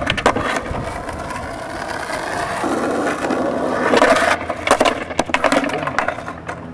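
Skateboard wheels rolling over concrete as the rider goes up a steep bank, then a run of sharp knocks from about four seconds in as the board clatters away and the rider slams onto the concrete.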